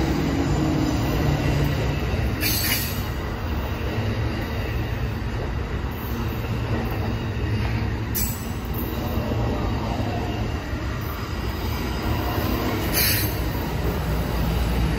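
Amtrak Superliner bi-level passenger cars rolling steadily past at close range, a continuous rumble of wheels on rail. Three short high-pitched sounds come about five seconds apart.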